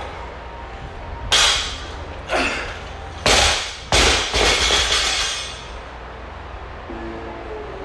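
Barbell loaded with bumper plates dropped onto a rubber gym floor four times, each landing a sharp bang with a clattering rattle of bar and plates; the last two, a bit after three and four seconds in, are loudest and ring on longest.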